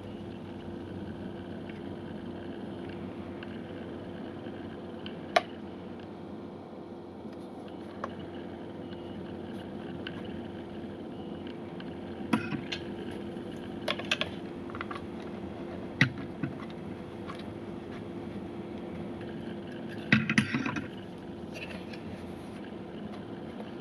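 A plastic IP camera being handled and turned over in the hands: a few sharp clicks and taps, with a short burst of clatter near the end, over a steady low hum and hiss.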